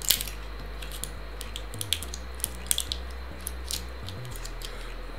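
Small clicks and light scraping as fingers handle a sub-ohm vape coil, the sharpest click right at the start and a few softer ones scattered after, over a steady low hum.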